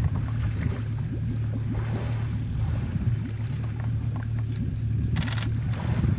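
Steady low hum of an idling boat motor, with small irregular water noises over it. A brief buzzy sound rises over it about five seconds in.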